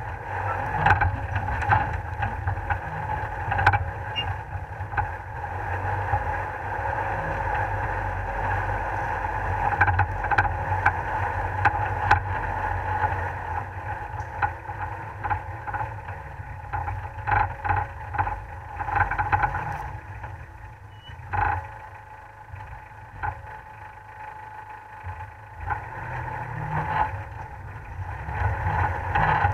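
Off-road 4x4's engine running as it drives a rough, wet forest track, picked up by a camera on the bonnet, with occasional sharp knocks from the rough ground. It eases off for a few seconds past the middle, then picks up again.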